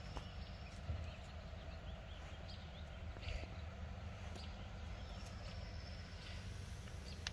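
Quiet background noise with light footsteps on concrete and a few faint high chirps.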